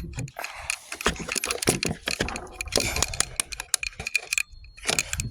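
BB gun being cocked and handled: a run of quick metallic clicks and rattles from its mechanism.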